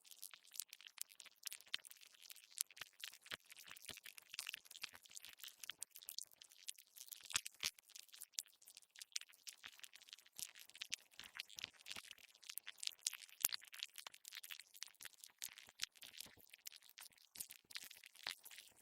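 Earthworm sound effect: a dense, irregular stream of faint, high-pitched crackles and clicks, with no steady rhythm.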